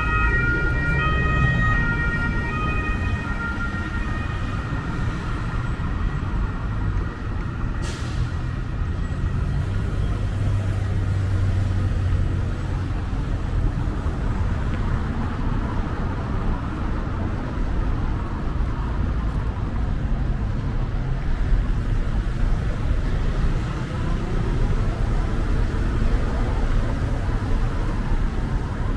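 Steady low rumble of city traffic, with an emergency vehicle's siren sounding alternating tones that fade away in the first few seconds.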